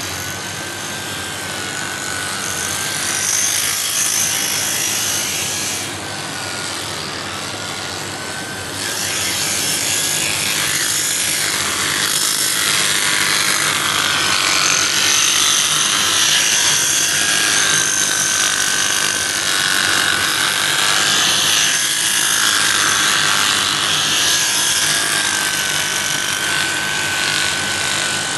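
Electric sheep shears running and cutting through a sheep's wool: a steady motor whine that wavers as the cutter bites, with a rasping chatter of clipped fleece. It is briefly quieter about six seconds in, then picks up again.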